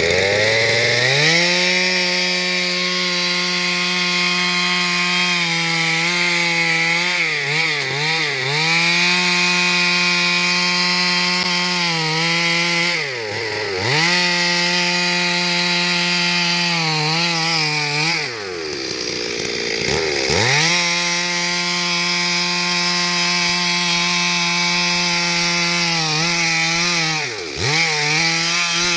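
Stihl two-stroke chainsaw running at high revs while cutting wood. The engine note drops sharply and climbs back several times, around a quarter, half, two-thirds and near the end of the stretch.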